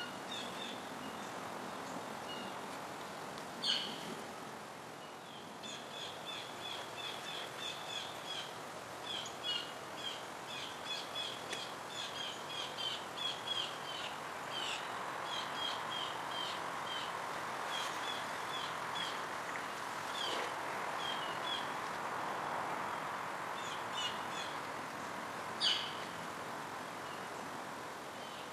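Small birds chirping in quick runs of short, high notes over a steady background hum of outdoor ambience, with two louder, sharper calls, one a few seconds in and one near the end.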